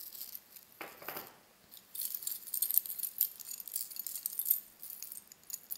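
Metal costume-jewellery chains and necklaces jingling and clinking as a hand rummages through a heap of them, mostly from about two seconds in until near the end, after a brief rustle about a second in.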